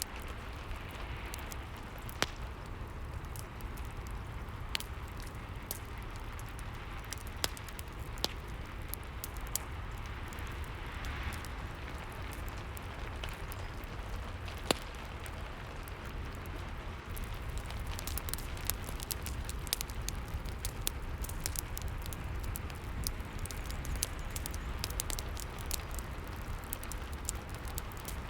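Fireplace crackling with sharp pops over steady rain. The pops come much thicker in the second half.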